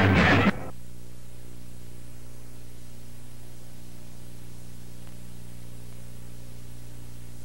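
Rock music cuts off about half a second in, leaving a steady hiss with a low electrical hum underneath.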